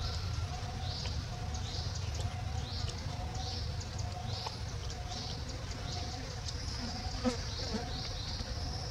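Insects chirping in a steady rhythm, a short high note about three times every two seconds, over a low rumble. A single sharp click about seven seconds in.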